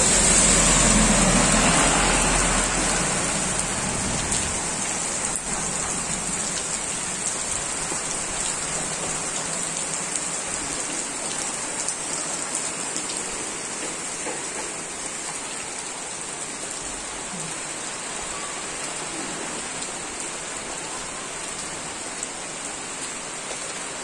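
Heavy rain falling steadily on a wet road and puddles, a constant hiss. In the first few seconds a small truck's engine and tyres on the wet road add a low rumble that fades as it passes.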